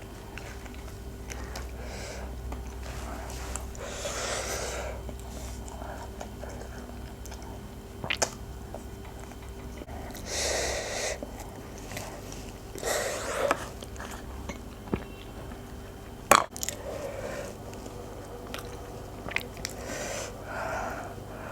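Close-up mouth sounds of a person eating spicy noodles: quiet chewing broken by several short breathy rushes of air, sniffs or slurps, and two sharp clicks about eight and sixteen seconds in.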